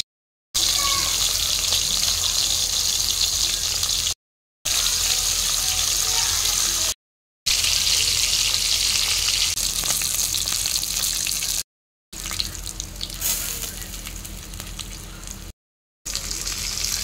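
Tilapia pieces frying in hot oil in a wok: a steady, loud sizzle, quieter for a few seconds late on and broken by several brief dead silences where the recording is cut.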